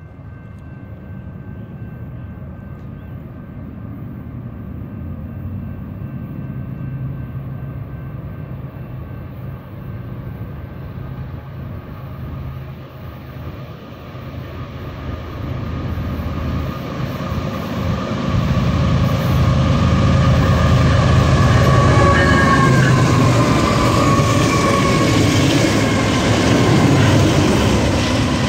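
Head-end set of BNSF GE diesel locomotives approaching under power, their low engine rumble growing steadily louder until the lead unit is alongside near the end.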